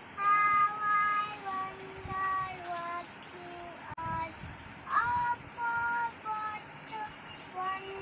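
A young child singing a nursery rhyme in short phrases with held notes.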